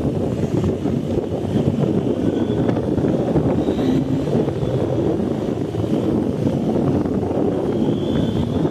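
BMW R 1250 GS boxer-twin motorcycle running steadily while being ridden, a dense low rumble mixed with wind noise on the microphone.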